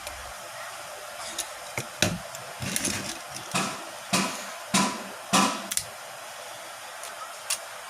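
A phone's broken display panel being pried off its frame: a run of sharp cracks and short scrapes in the middle, then a single click near the end, over a steady hiss.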